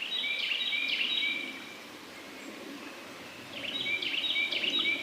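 Carolina wren singing: two bouts of its fast run of repeated notes, one at the start and one near the end, each lasting about a second and a half.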